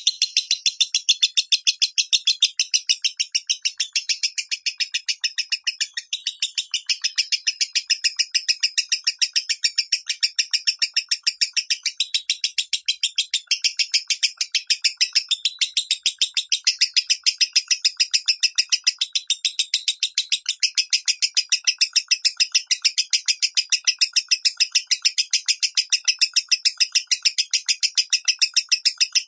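Lovebird singing a long unbroken chattering run in the high 'minor' voice: rapid sharp chirps at about four a second, with no pause.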